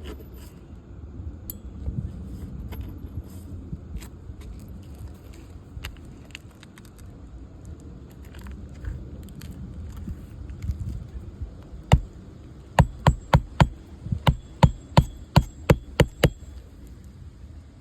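Hammer driving roofing nails into asphalt shingles: a few light taps, then a run of about a dozen sharp strikes at roughly three a second in the last third.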